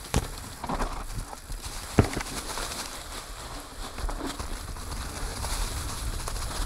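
Mountain bike rolling down a dirt forest trail: tyres on dirt and leaf litter with the bike rattling over the bumps, a sharp knock about two seconds in, and wind rumbling on the microphone.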